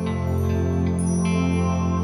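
Background music in a calm new-age style: sustained low drones with soft higher notes coming in over them.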